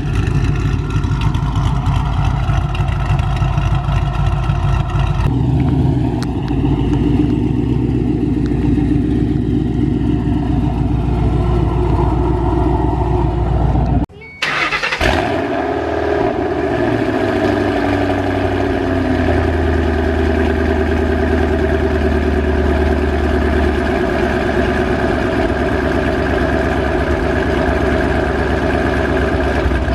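Ford Mustang GT V8 with long-tube headers, off-road X-pipe and Corsa Extreme exhaust idling steadily. About 14 seconds in, the sound cuts out briefly, then a V8 starts up with a fast idle that drops and settles into a steady idle.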